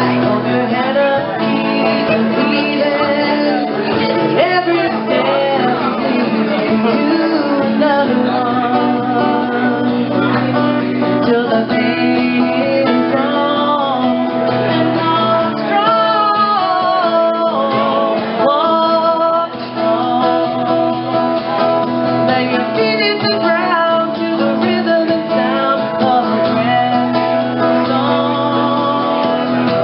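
A woman singing a song to a strummed acoustic guitar accompaniment.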